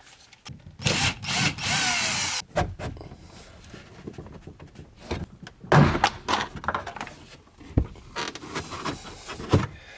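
Hand-tool work on BMW E92 M3 interior trim: a loud noisy burst of about a second and a half as a T20 Torx screw is worked out, then scattered knocks and clunks as a plastic trim piece is pried loose, taking more force than expected.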